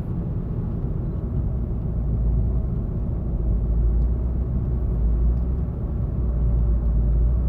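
Steady low rumble of a vehicle, like road and engine noise heard inside a moving car.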